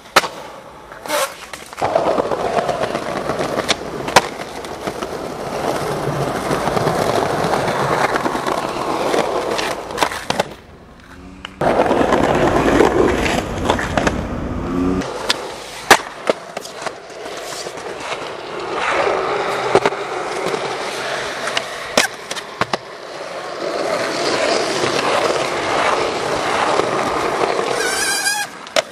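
Skateboard wheels rolling on concrete, broken every few seconds by sharp clacks of the board popping and landing.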